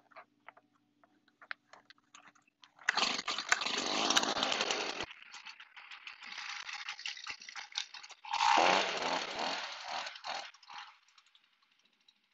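Stihl BG 50 two-stroke handheld leaf blower running in bursts: a loud rush of air for about two seconds, a quieter stretch, a second loud burst, then it stops shortly before the end.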